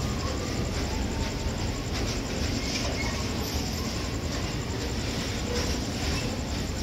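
TPI diesel locomotive no. 70110 running with a steady low rumble.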